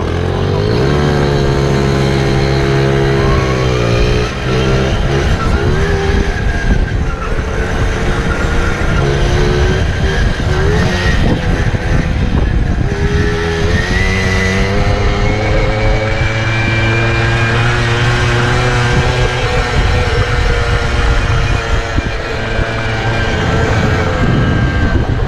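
Several 50cc moped engines running under way. They rev up at the start, ease off briefly and climb again partway through, then hold at a steady cruising pitch, with wind rushing over a helmet-mounted microphone.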